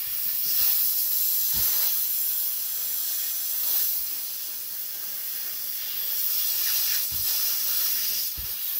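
Compressed air hissing from a blow-gun nozzle, blasting oily grime off a mower's hydrostatic transmission housing. The hiss is steady and swells and eases as the nozzle moves over the casing.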